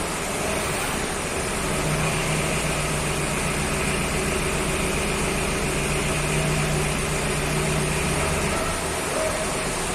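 Forklift engine running steadily at a low, even speed.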